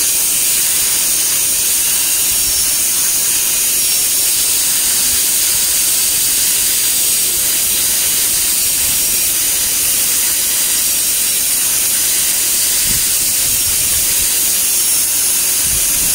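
High-speed air-turbine dental handpiece running steadily with its water spray, a continuous high-pitched hiss, as a flat-end diamond bur cuts a shoulder finish line on a model incisor.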